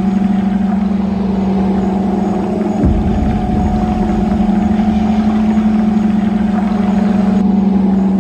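A steady low electronic drone with a faint higher tone over a hiss, a space-themed ambient noise track. There is a short low thump about three seconds in.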